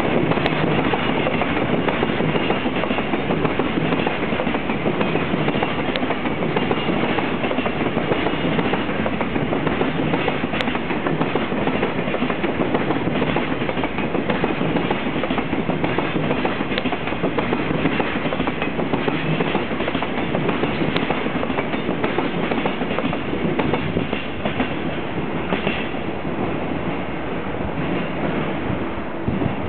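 Long freight train of container wagons rolling past steadily on the far track, the noise easing slightly near the end as the last wagons go by.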